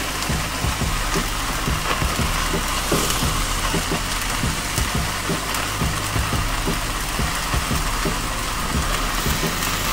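A large porterhouse searing over high open flames on a grill grate: fat sizzling and crackling in the fire, with a steady low drone underneath.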